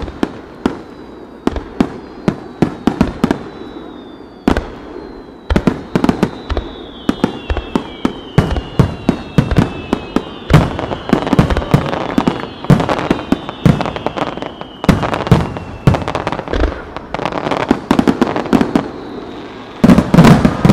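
Fireworks display: a rapid, irregular string of bangs from firework shells launching and bursting. High whistling tones glide slowly downward through the middle, and a dense volley of bangs near the end is the loudest part.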